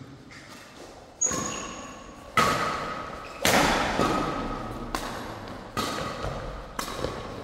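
Badminton rally: rackets striking the shuttlecock about seven times, roughly once a second, starting about a second in. Each hit is a sharp crack that echoes around the hall.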